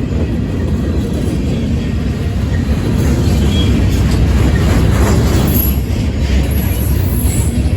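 Freight train passing close by: a steady, heavy rumble of wheels on the rails, with faint high-pitched wheel squeals in the second half.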